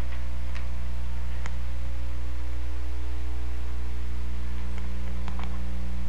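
Steady low electrical hum from the sound system, with a few faint clicks in the first second and a half and three more around five seconds in.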